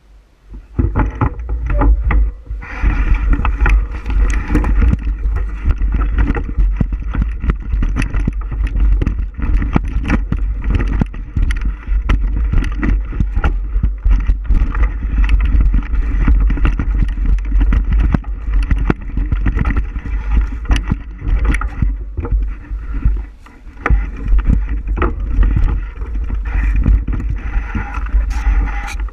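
Bicycle riding along a trail, heard from a camera on the moving bike: heavy wind rumble on the microphone with constant rattles and knocks from bumps, and a steady higher hum through most of it that briefly dips about three quarters of the way through.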